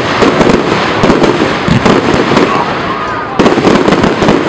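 Fireworks display: aerial shells bursting in quick succession, a dense run of booms and crackles, with heavier bursts about a second in and again about three and a half seconds in.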